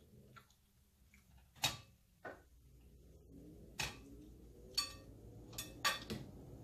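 Metal knife and fork clinking on a plate while cutting roast beef: a few sharp, separate clicks, the last ones close together near the end, over a faint low hum.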